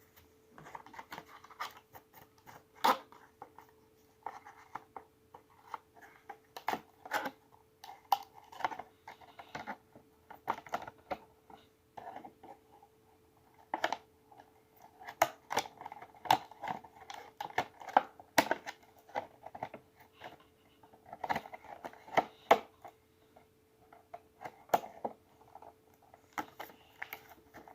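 Toy packaging being handled and fitted back together by hand: irregular crinkles, scrapes and sharp clicks of plastic and cardboard, with a faint steady hum underneath.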